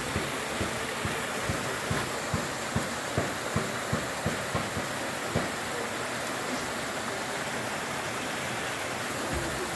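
Small rocky creek, water running steadily over stones. Soft low thumps repeat through the first five seconds or so, then stop.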